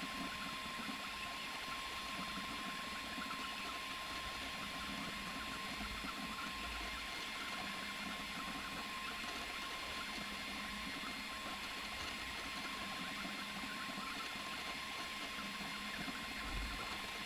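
A 3018 mini CNC laser engraver running an engraving job: a steady mechanical hum and hiss with one constant tone.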